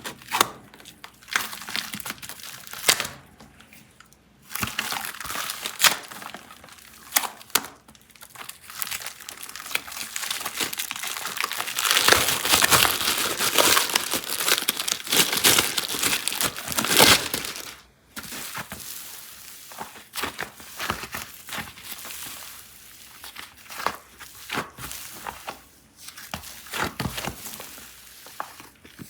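Plastic clay packaging crinkling and tearing as it is handled and opened, in irregular crackles and sharp clicks. A dense, louder stretch of crinkling comes about halfway through and stops abruptly.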